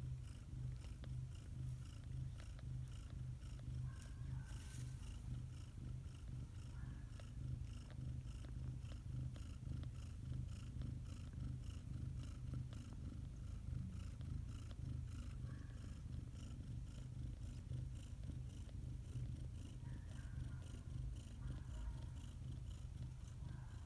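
Cat purring steadily, a low continuous rumble close to the microphone, while a litter of young kittens nurses at her belly.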